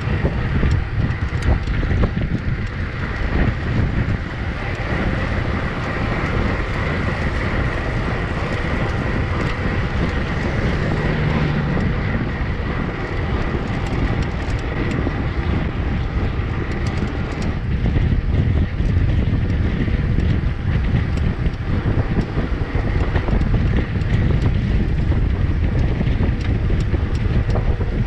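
Wind rushing over an action camera's microphone on a moving mountain bike: a loud, steady rush that runs unbroken.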